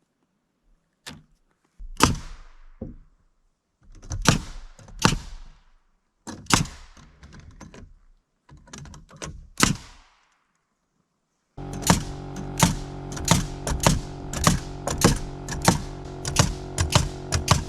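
A series of sharp knocks and thunks, some in quick pairs, with short silences between them. About two-thirds of the way in, background music with a steady beat starts.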